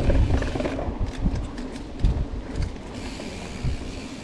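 Mountain bike rolling along dirt singletrack, its rear freehub ratchet clicking as the rider coasts, over a steady low rumble of tyres and wind on the helmet camera.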